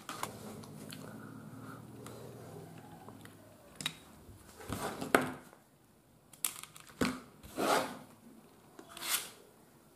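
Green insulated earth wire being handled and cut: rustling and crinkling of the wire, with sharp clicks about five and seven seconds in. A low steady hum runs through the first three seconds or so.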